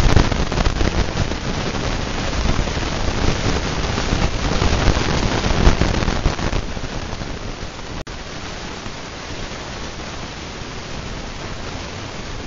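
Hunter Low Profile ceiling fan running at high speed: the rush of air off its blades, a loud steady hiss with gusty low buffeting on the microphone. About seven to eight seconds in it drops to a quieter, even hiss.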